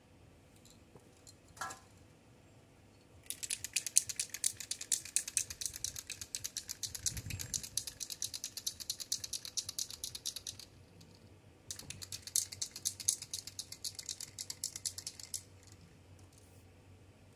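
Aerosol spray-paint can being shaken hard, the mixing ball inside rattling rapidly. It comes in two bouts: a long one starting about three seconds in, then after a short pause a shorter one of about four seconds.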